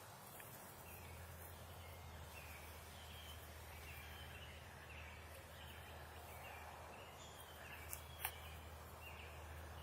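Faint bird calls: short, slightly falling notes repeated about twice a second, over a low steady hum. Two sharp clicks come near the end.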